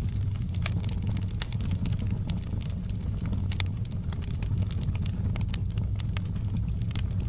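Wood fire burning, with a steady low rumble and frequent irregular sharp crackles and pops.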